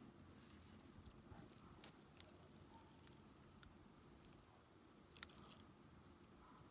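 Near silence with a few faint clicks and rustles as a beaded stretch bracelet with metal charms is turned over in the hands, the clearest about two seconds in and again about five seconds in.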